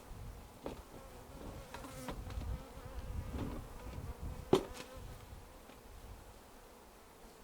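Honeybees buzzing close by, a steady drone that fades in the last couple of seconds. A few sharp knocks are heard, the loudest about four and a half seconds in.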